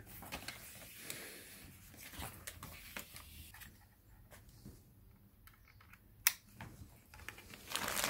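Faint rustling and small plastic clicks as an Ethernet cable with a freshly crimped RJ45 plug is handled and fitted into a network adapter's port, with one sharp click about six seconds in.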